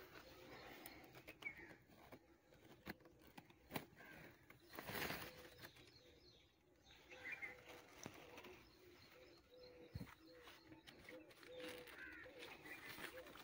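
Faint bird calls and chirps, with a low note repeating in the second half, and a brief rustle about five seconds in.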